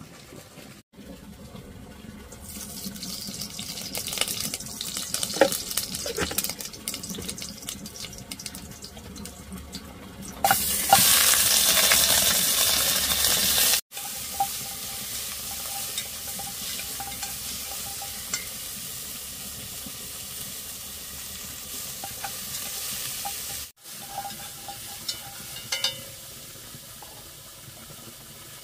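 Meat sizzling as it fries in a metal pot over a wood fire, stirred with scraping and clicking against the pot. The sizzle swells loudest for a few seconds in the middle, then settles to a quieter steady hiss.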